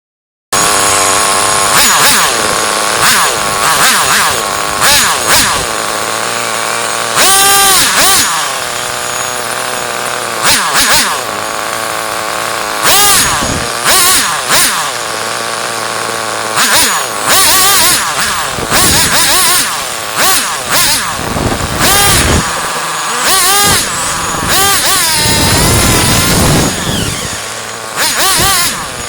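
HPI RS4 RTR 3 Evo+ nitro RC car's small two-stroke glow engine, heard close up from onboard, revving up and dropping back over and over as the throttle is opened and released.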